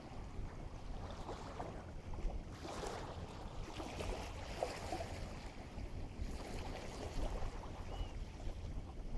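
Waves washing in at the shore with steady wind, which rumbles on the microphone.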